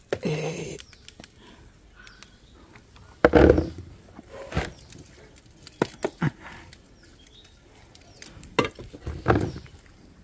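Hands plucking bilimbi fruits off the tree trunk and collecting them in a plastic basket: a scatter of short rustles, snaps and light knocks. The loudest comes about three seconds in.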